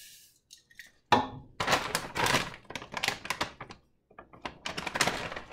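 A plastic bag of rolled oats being handled, crinkling in irregular spells, with a sharp thunk about a second in.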